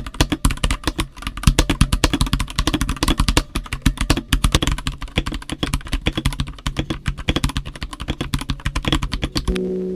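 Mechanical keyboard being typed on fast: a dense, uneven run of keystroke clacks that stops about half a second before the end, where music comes in.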